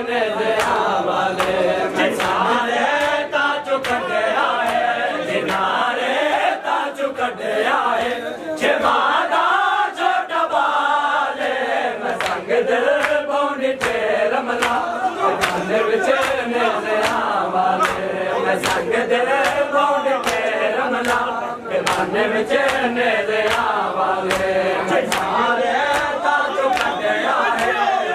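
A large crowd of men chanting a noha together in unison, with sharp slaps of hands striking chests (matam) throughout.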